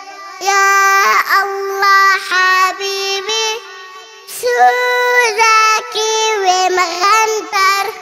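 A young girl singing an Arabic children's song in a high, clear voice, with a brief pause about halfway through.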